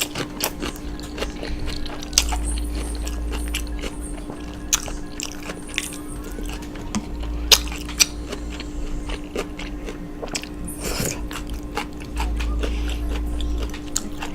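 Close-miked chewing and biting of Chinese takeout food, with many irregular sharp crunches. A steady hum runs underneath.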